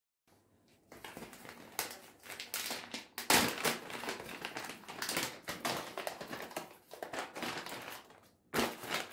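Crinkling and rustling of something being handled, with many small clicks and a louder knock about three seconds in.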